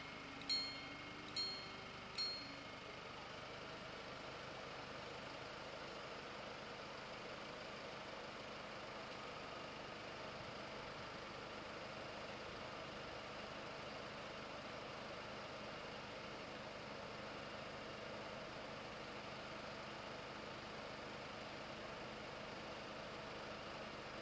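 Level-crossing bells ring with three strikes about a second apart and then stop, as the barriers come to rest down. A steady low background hum follows.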